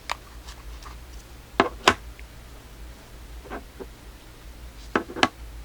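Sharp clicks and taps of small hard objects being handled, loudest as two quick pairs, one near two seconds in and one near five seconds in, over a low steady hum.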